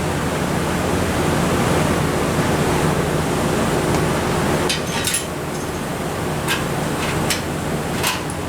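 Stick welding arc frying steadily while a pass is laid on the rebuilt steel chipper-drum shaft, with a few sharp crackles and pops in the second half. A steady low hum runs underneath.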